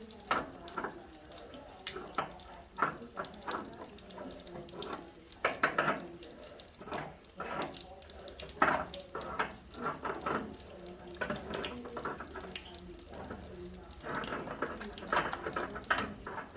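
Water running and splashing from a water heater's plumbing as the tank is drained and its cold water connection is loosened, with irregular splashes and spatters over a steady flow.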